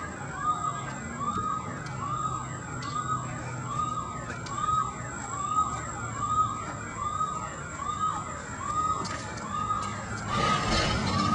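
Police car siren sounding in quick, repeated rise-and-fall sweeps, a little more than one a second. Near the end a louder rushing noise comes in over it.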